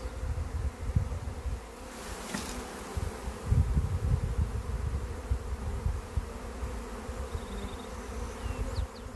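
Swarm of honey bees buzzing in flight, a steady dense hum from many bees taking to the air after being shaken off a branch into a hive box.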